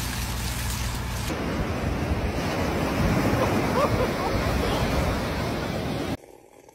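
After about a second of running water, waves breaking and washing up onto a sandy beach, with wind rumbling on the microphone. The surf cuts off suddenly near the end.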